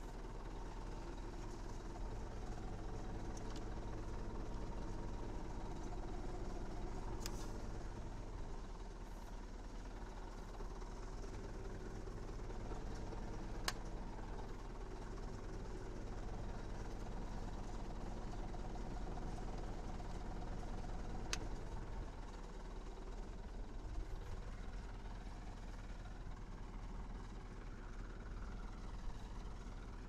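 Zetor 7011 tractor's four-cylinder diesel engine idling steadily, with a few sharp metallic clicks as the trailer's hitch and cable connections are handled.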